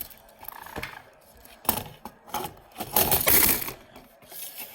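Handling noise on a fire alarm control panel's enclosure as a part of it is propped to stay up: scattered clicks and knocks, a sharper knock just under two seconds in, and a short scraping rattle around three seconds in.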